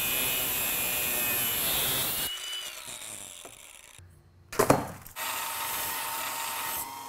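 Angle grinder with a cut-off wheel cutting through a steel strut tube clamped in a vise, a loud steady hissing whine that dies away about two seconds in. A few sharp metal knocks follow, then a bench grinder runs and grinds the cut end of the tube for about two seconds near the end.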